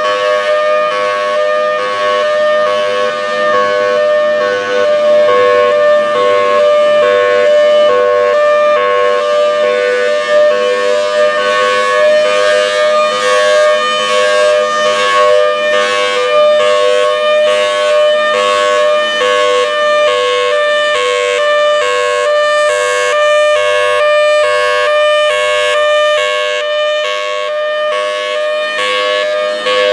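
Federal Signal Thunderbolt 1003 tornado siren sounding its hi-lo signal: two pitches alternating steadily back and forth, each held for well under a second.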